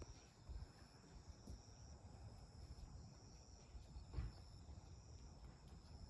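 Near silence, with faint insects, crickets by the sound of it, trilling steadily in high thin tones, and a soft thump about four seconds in.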